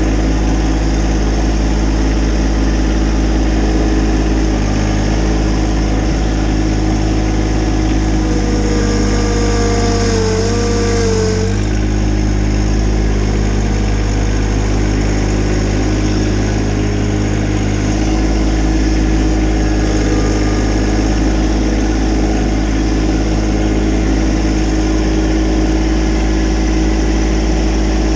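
Small machine engine running steadily. About nine seconds in, a wavering whine joins for a couple of seconds, then drops away.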